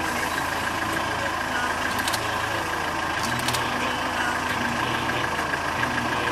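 Game-drive vehicle's engine idling steadily, with a couple of faint clicks about two and three and a half seconds in.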